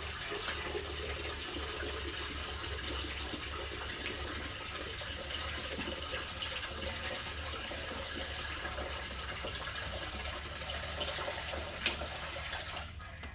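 Steady water noise: an even hiss dotted with many small drop-like ticks, over a low steady hum, falling away sharply near the end.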